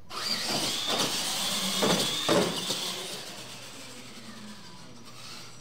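Two electric RC monster trucks launching and running flat out across a hard floor: a high motor whine with tyre noise, and several sharp thumps in the first couple of seconds as they cross the ramps. The sound fades as the trucks pull away down the track.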